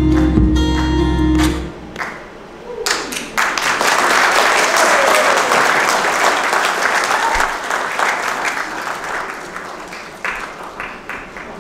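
A recorded dance song plays and stops about two seconds in; an audience then applauds, the clapping fading out near the end.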